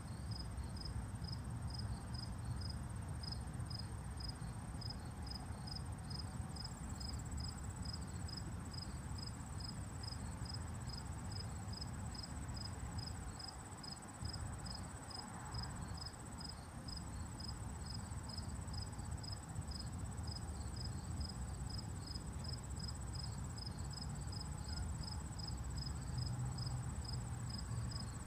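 Crickets calling: one gives a steady run of chirps, about two a second, while another trills without a break at a higher pitch, over a low background rumble.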